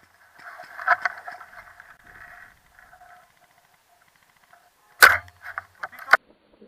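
Airsoft sniper rifle firing a single shot about five seconds in, a sharp crack followed within a second by three or four quick clicks. Before it there is only faint scratchy noise.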